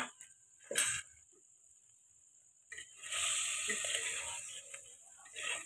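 Metal spatula stirring and scraping masala-coated fish pieces in a clay pot, with a rasping, sizzling scrape lasting about two seconds from roughly halfway in. A brief knock comes just under a second in, and another short scrape near the end.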